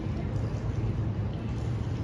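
Steady low rumble of outdoor ambient noise with no distinct events.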